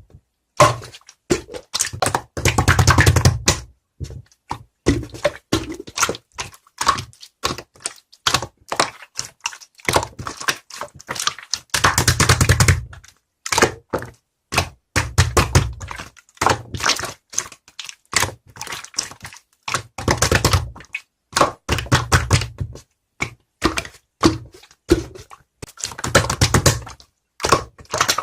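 Close-miked eating sounds: rapid crunchy clicks and taps, with heavy low thumps against the microphone every few seconds.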